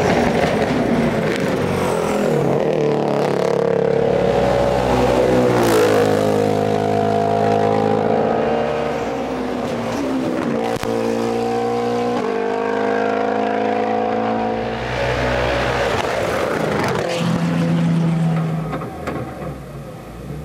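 Ford Fiesta WRC rally car's turbocharged four-cylinder engine revving hard through the gears, its pitch climbing and dropping again and again on shifts and lifts. The car is suffering an engine problem.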